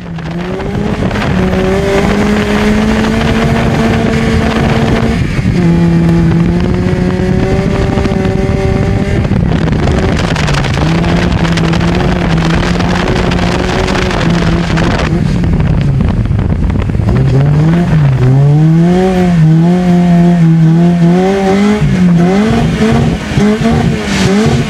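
Engine of a Peugeot autocross car heard from inside the cabin, driven hard on a dirt track. The revs hold high, drop at gear changes about five, ten and fifteen seconds in, then rise and fall quickly in the last several seconds as the throttle is worked through the corners. A steady rush of wind noise lies over it.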